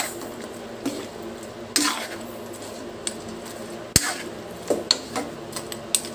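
Metal spoon stirring and scraping chunks of braised pork in a metal wok, with irregular clinks of spoon on pan, the sharpest about four seconds in.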